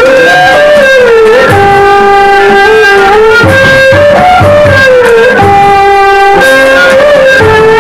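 Loud instrumental music led by a plucked string instrument, its melody made of held notes that slide and bend in pitch.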